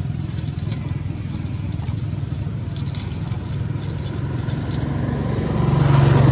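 Dry leaves crackling and rustling as macaques grab at a leafy vine. Under it runs a steady low drone that swells about five and a half seconds in.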